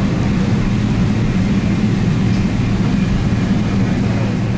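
Steady low drone inside the passenger cabin of a Boeing 777 on the ground before takeoff.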